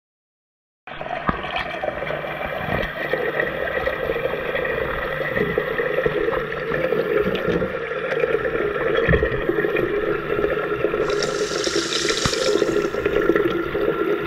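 Tap water pouring into a bathtub, heard from a camera held under the water: a steady bubbling rush that starts suddenly about a second in, with a higher hiss joining briefly near the end.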